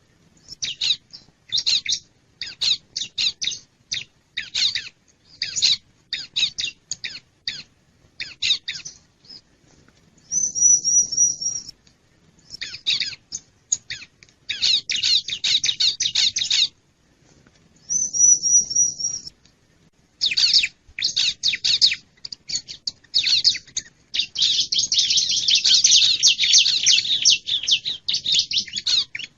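Bar-winged prinia (ciblek) calling, a lure recording: bursts of rapid, high chattering notes broken by short pauses, with a short wavering high trill recurring about every eight seconds and a long dense stretch of chatter near the end.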